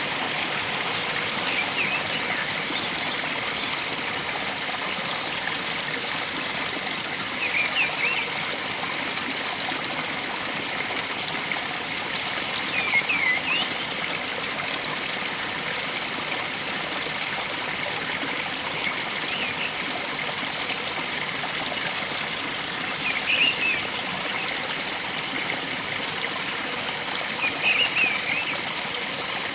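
Steady rush of a flowing stream, with a bird giving short clusters of chirps every few seconds, about six times.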